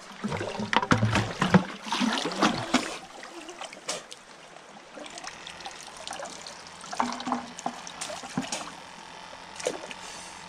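Water splashing and trickling, loudest and busiest over the first three seconds, then softer trickling with a few small splashes.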